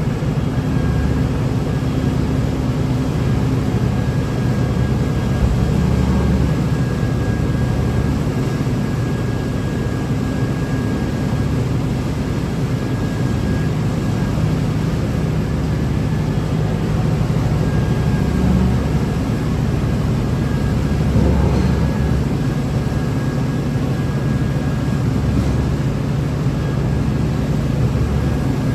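Heavy farm machinery running steadily: a loud, even engine drone with a faint steady whine above it.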